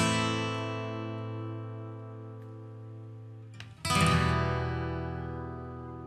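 Acoustic guitar chords strummed and left to ring. One chord rings out and slowly fades, and a second is strummed nearly four seconds in and rings out the same way.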